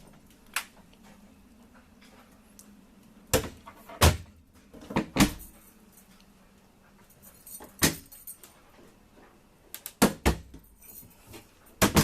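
Sharp wooden knocks and clicks at irregular intervals, about nine in all and loudest around four and ten seconds in, as galley cupboard doors and catches are handled.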